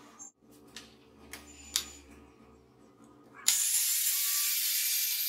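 A few light clicks and knocks from handling the sliding grinder stand, then about three and a half seconds in an angle grinder on the stand switches on suddenly and runs at speed with a loud, steady high-pitched hiss and whine.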